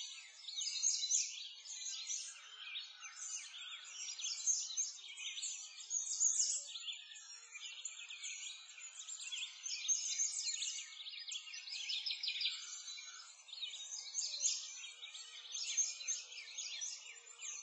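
Dense chorus of many small songbirds chirping and twittering, short rapid chirps overlapping continuously with no pause.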